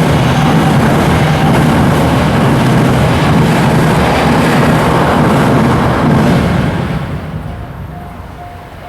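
A Series E353 limited express electric train passes at speed with a loud, steady rushing rumble. The rumble dies away from about seven seconds in, leaving a level-crossing alarm ringing in a steady repeating tone.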